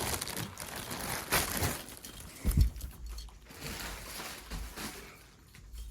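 Cardboard box and packaging being opened and handled: irregular rustling and crinkling with a few dull knocks, the loudest about two and a half seconds in.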